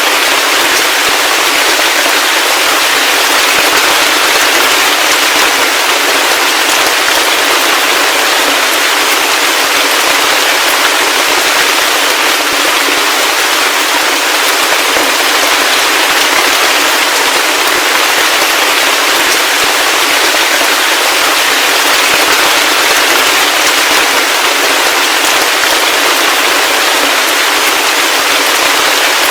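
Heavy rain falling steadily: a dense, even hiss of close, crackling drop impacts, thin with no low rumble.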